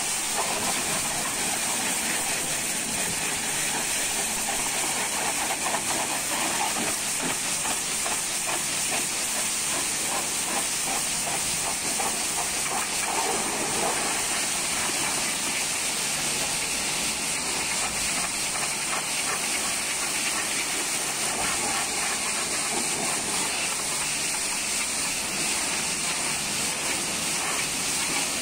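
High-pressure washer spray hissing steadily, without a break.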